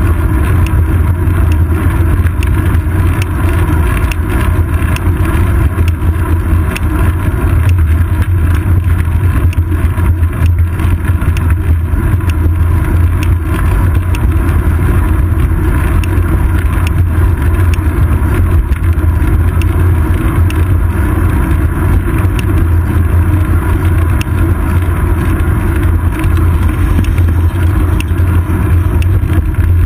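Wind buffeting the microphone of a seat-post-mounted GoPro Hero 2 on a moving bicycle, with road noise from the tyres: a loud, steady low rumble that stays even throughout.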